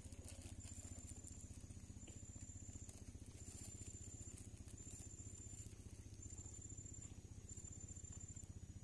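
Faint outdoor ambience: an insect trilling high and thin in regular bursts of just under a second with short gaps, over a steady low hum and faint patter of raindrops.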